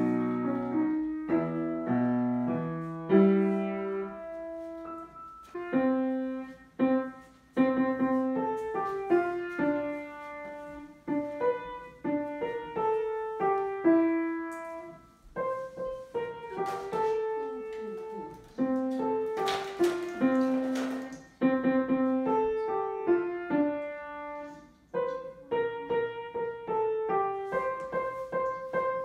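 Upright piano played by a young child, a melody of separate notes struck one after another, with lower notes near the start. A brief rustling noise sits under the notes about two-thirds of the way through.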